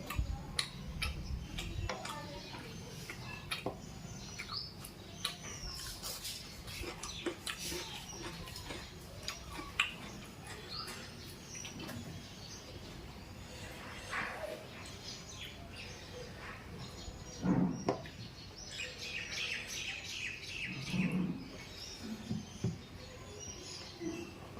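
Close-up eating sounds of chicken with roti: chewing, lip smacks and mouth clicks, with a few louder gulps or thuds. Short high chirps sound in the background, twice in small clusters.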